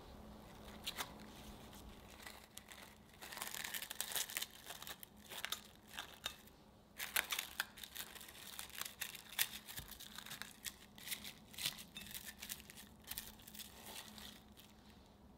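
Clear plastic wrap crinkling as fingers press and smooth it into a square ceramic dish to line it. The crackling is irregular and comes in spells, with a short pause about six seconds in.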